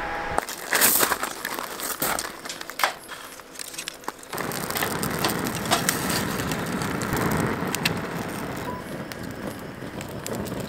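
A small wood fire being kindled with dry leaves and twigs: crunching and sharp cracks at first, then a steady crackle from about four seconds in as the firewood burns under lumps of charcoal being set on it.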